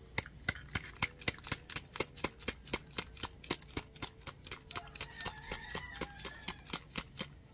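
Plastic spice shaker of onion powder being shaken over raw chicken pieces: a quick, even run of clicks, about five a second, that stops just before the end.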